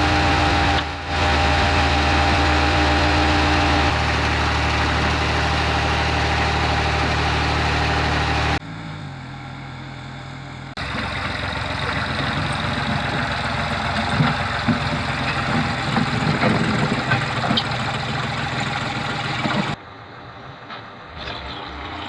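An engine running steadily, heard in several clips cut together: its pitch and level change suddenly about 4 seconds in, drop about 8½ seconds in, pick up again near 11 seconds with a rougher sound, and fall away near the end.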